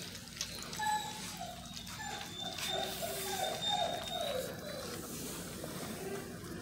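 Basset hound puppies eating mush from a shared pan, giving a string of short, falling whines from about one to four seconds in, over small wet eating clicks.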